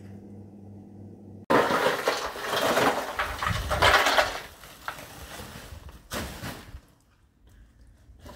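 A steady low hum cuts off suddenly, and loud clattering and rattling of hard objects, like dishes being handled, follows for about three seconds. A shorter clatter comes about six seconds in.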